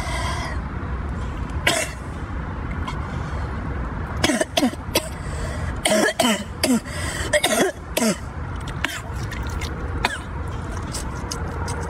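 A man coughing and clearing his throat in short harsh bursts, most between about four and eight seconds in, while eating super-spicy raw octopus: a reaction to the chilli burn. A steady low rumble runs underneath.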